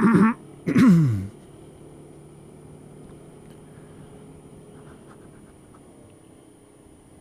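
Two short wordless vocal sounds from the rider at the start, the second sliding down in pitch like a sigh. After that, the Honda Dio scooter's engine runs quietly and steadily.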